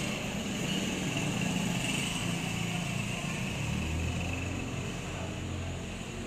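Steady mechanical drone of a spray booth's air-handling fans running during a bake cycle, with a low hum that swells about four seconds in.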